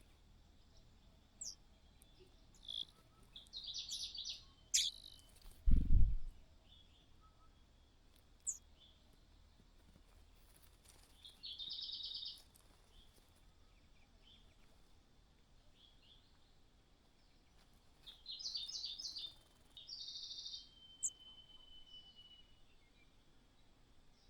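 Small bird chirps and short rapid trills, high-pitched, coming in scattered bursts with quiet between them. One loud low thump about six seconds in.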